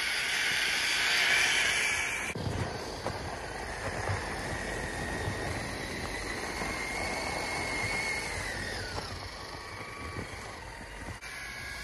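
Traxxas TRX-4 RC crawler with a Fusion Pro 2300kv brushless motor on a 2S battery, driving through dry snow. The motor gives a steady high whine that drops away around nine seconds in, over the noise of the tyres churning snow, with a few low knocks. The sound changes abruptly about two seconds in and again near the end.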